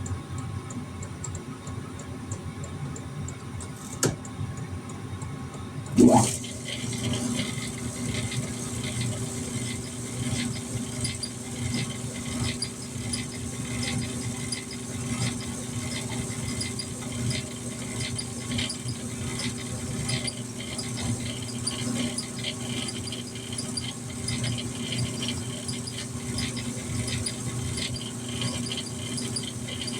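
Metal lathe running while a drill bit cuts through the center of a metal piece. A sharp click about four seconds in and a loud knock about six seconds in, after which the machine runs louder with a steady hum and a fast, even ticking.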